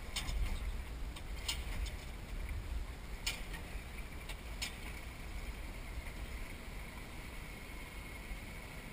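Wind and water noise on a kayak-mounted camera's microphone: a steady low rumble. Four sharp clicks or knocks come in the first five seconds, and a faint, thin, steady high whine starts about five seconds in.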